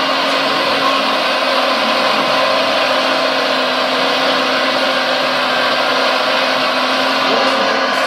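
RC scale Liebherr R956 excavator working a dig, its onboard sound module playing a simulated diesel engine sound that runs loud and steady with a constant hum.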